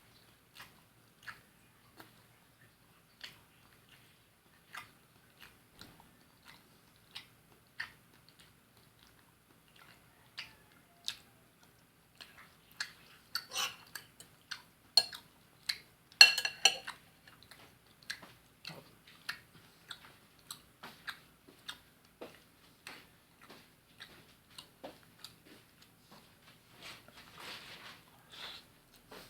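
Close-up chewing and biting of fried fish: soft, wet mouth clicks every half second or so. A louder run of crisp bites in the middle, about 13 to 17 seconds in.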